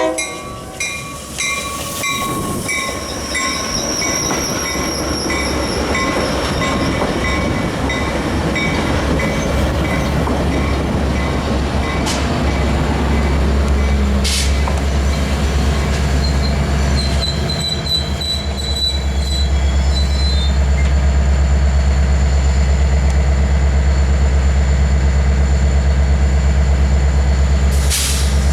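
Passenger train rolling past with wheels squealing high and thin over rail rumble. From about two-thirds of the way through, a diesel locomotive's engine runs steadily at close range with a low pulsing throb.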